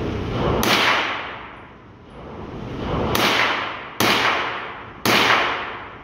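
Four sharp rifle shots, each fading out in a short echo around the indoor range. The first comes about half a second in, and the other three follow about a second apart from about three seconds in, over a low steady rumble.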